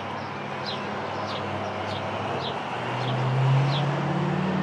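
Outdoor traffic noise: a motor vehicle's engine hum grows louder in the second half, over a steady background rush. A bird chirps repeatedly throughout, one short falling chirp about every two-thirds of a second.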